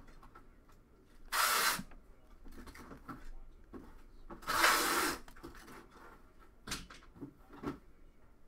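Panini Prizm football cards being flipped through in the hands, cards slid across one another off the stack: two loud swishes about three seconds apart, with softer rustling and a few light ticks of card edges between and after.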